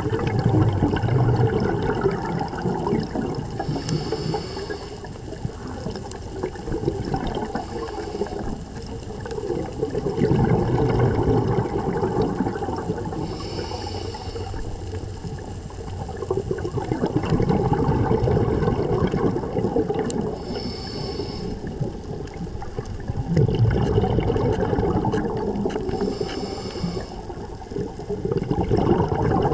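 Scuba diver breathing through a regulator underwater: a short hiss on each inhale, four times about every six to seven seconds, each followed by a longer rumble of exhaled bubbles.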